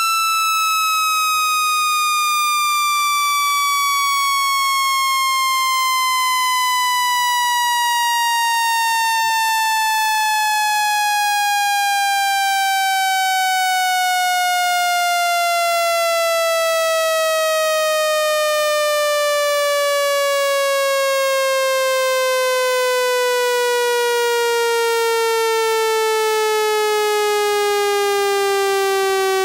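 Synthetic speaker water-eject tone, a buzzy electronic tone rich in overtones, gliding slowly and steadily down in pitch at an even loudness. It is a frequency sweep meant to vibrate trapped water out of a phone speaker's grille.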